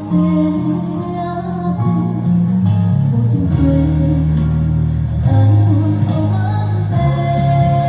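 Music with a woman singing over a heavy, sustained bass accompaniment.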